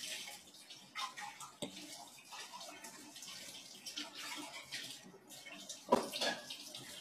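Faint scattered rustles and small mouth clicks from eating a snack close to a phone microphone, with one sharper click about six seconds in.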